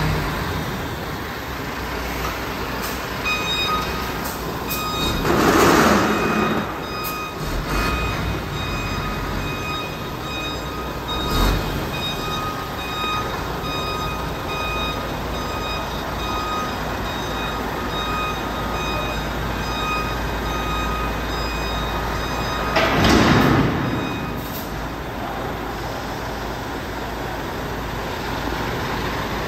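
Heavy diesel truck moving slowly, its engine running low and steady, with a reversing alarm beeping repeatedly from a few seconds in until about 24 s. Two loud hisses of air break in, one about six seconds in and one near the end.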